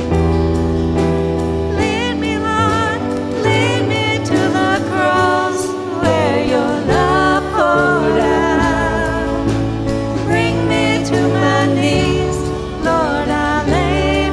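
A church worship band playing a gospel-style song, with a singer holding wavering notes over sustained bass notes and a steady beat.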